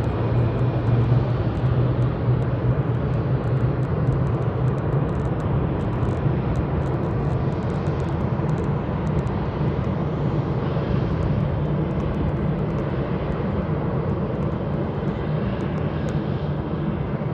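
Jet airliner engines heard across an airfield as a steady, even rumble.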